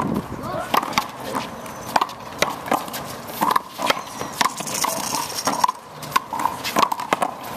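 Handball rally: the small rubber ball smacking off the concrete walls and floor and off players' hands in a quick, irregular run of sharp cracks, several a second at times.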